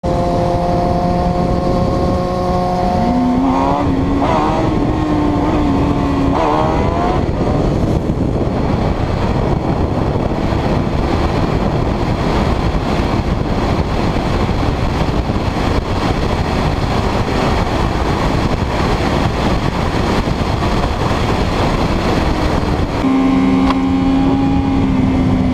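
Sport-bike engines running at road speed under a heavy rush of wind over the camera. In the first seven seconds and again near the end the engine tone is clear, climbing and changing pitch as the throttle and gears change. In between, the wind noise mostly drowns the engines.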